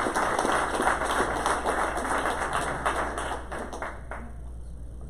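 Audience applause, many hands clapping, dying away about four seconds in.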